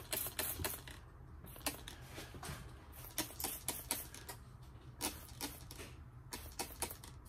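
Hand-pumped trigger spray bottle spritzing soapy water onto pipe fittings, a quick irregular string of short sprays. The soap solution is being applied to find leaks on a pressurized cylinder.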